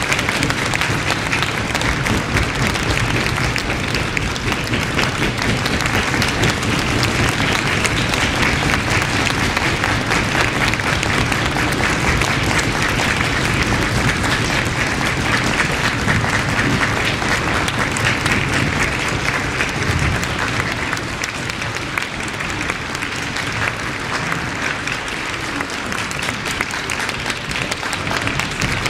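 Audience applauding, a dense, steady clapping of many hands that eases slightly about three-quarters of the way through, then picks up again near the end.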